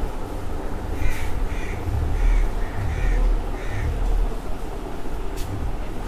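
A crow cawing about five times in a quick run, roughly half a second apart, over a low background rumble.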